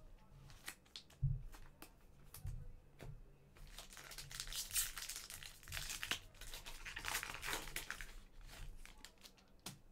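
A few light clicks, then the wrapper of a soccer trading card pack being torn open and crinkled for several seconds, with one more click near the end.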